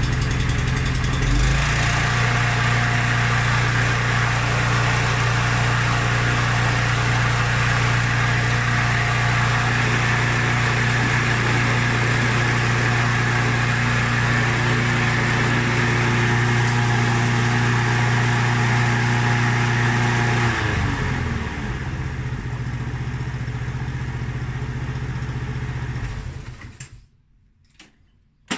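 Mountfield SP536ES mower's single-cylinder RM55 petrol engine running steadily. About twenty seconds in its speed drops and it runs a little more quietly, then it dies away and stops near the end.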